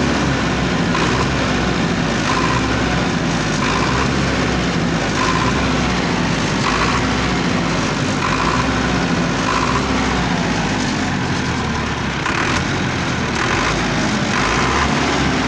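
Powertrac Euro 55 tractor's diesel engine running steadily while the foot accelerator is pressed and released, with a higher-pitched noise coming and going about once a second. The owner says this accelerator sticks when pressed, then jumps the engine to full speed and lets it drop fully when released.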